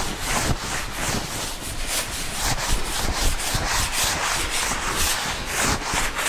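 Chalk blackboard being wiped clean with a hand-held duster: quick repeated back-and-forth rubbing strokes across the board.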